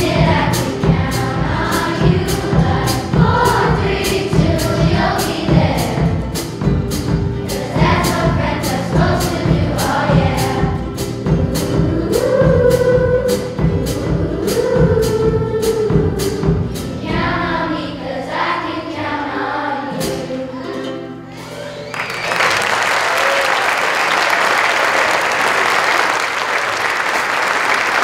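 Children's choir singing with a drum kit keeping a steady beat; the song ends on held notes a little past halfway through, and audience applause follows for the last several seconds.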